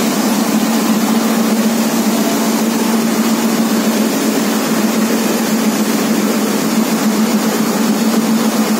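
Steady motor hum with an even rush of air, as of a hot-air plastic welding gun running while the plastic around a hole in a polyethylene water tank is repaired.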